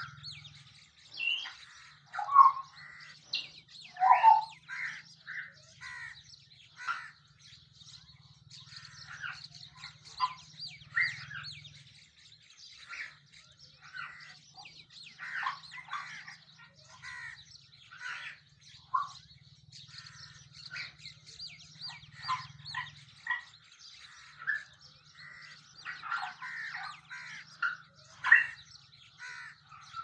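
Birds chirping and whistling in many short calls from several birds, with a few louder calls in the first few seconds and a busier run of calls near the end.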